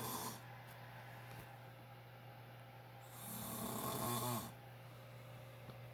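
A man snoring loud in his sleep: the end of one snore at the very start, then one full snore about three seconds in lasting about a second and a half, with breathing between.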